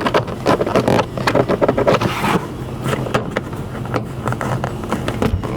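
Plastic interior trim panels in a car cabin being worked loose by hand: irregular scraping with many small clicks and knocks.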